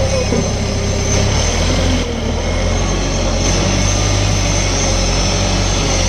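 Lonking forklift's engine running steadily, close by, as the forklift pushes a heavy load forward.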